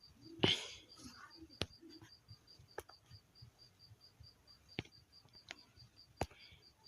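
Quiet room tone with a few faint, sharp clicks at uneven intervals, and a faint high-pitched pulse repeating about four times a second.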